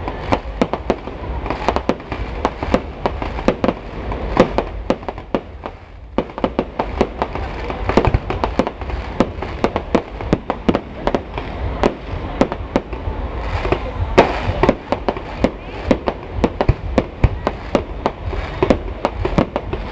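Fireworks display: a rapid, continuous barrage of bangs and crackles, several a second, over a steady low rumble. The loudest bang comes about fourteen seconds in.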